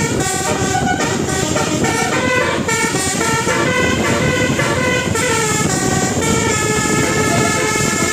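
Bus telolet horn, a multi-trumpet air horn set with twelve notes, playing a tune of short held notes that step up and down, over a steady low rumble.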